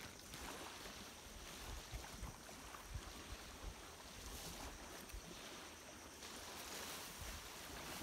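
Faint wind and sea at the shore: an even wash of noise with low gusts of wind rumbling on the microphone, and a few faint clicks about two to four seconds in.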